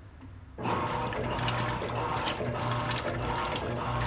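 Electrolux Essencial Care LES13 top-load washing machine filling: water rushes into the tub, starting abruptly about half a second in and running on steadily with a low hum, a racket.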